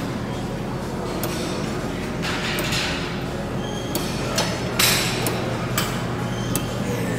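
Gym clatter: irregular sharp metal clinks and clanks of weight plates and machines, with a few short hissy swells over a steady low hum.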